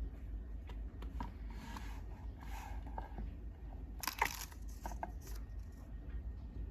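Crinkling and rustling handling noises with short clicks, and a louder tearing burst about four seconds in.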